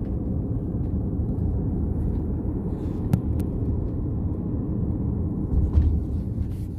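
Road and engine noise inside a moving car: a steady low rumble, with two small clicks about three seconds in.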